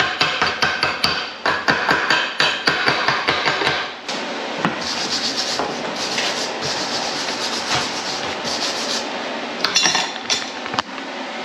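Chipping hammer knocking slag off a fresh stick weld at the foot of a steel shaft, a rapid run of sharp metallic taps for about four seconds. Then comes a steady scratching of a wire brush scrubbing the weld clean, with a few more taps near the end.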